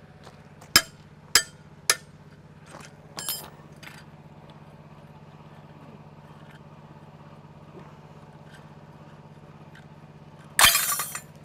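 Footsteps crunching on gravel, a few sharp steps early on, then near the end a sudden loud metallic snap and clatter as locking pliers are released from the push rod of a semi-truck air brake chamber and the parts come loose onto the gravel.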